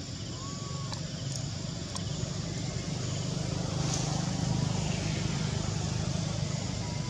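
Steady low rumble of a motor vehicle engine, swelling a little in the middle as if passing.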